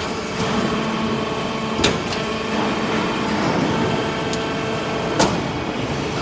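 Hydraulic metal-chip baler running: a steady machine hum with faint whining tones, broken by two sharp knocks about two and five seconds in.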